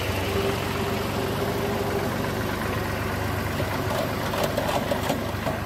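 Zetor 3511 tractor's three-cylinder diesel engine running steadily as the tractor drives along, with a few sharp knocks about four to five seconds in.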